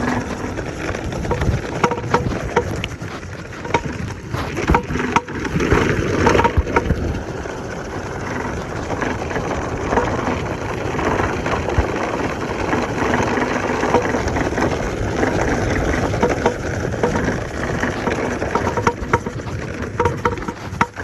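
Electric scooter ridden over rough off-road ground: tyres crunching over dirt and stones, with many sharp cracks and knocks from the bumps, thickest a few seconds in.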